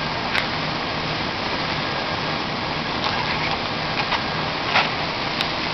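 Steady background din of a large, busy indoor hall, with a faint low hum and a few short clicks and clatters.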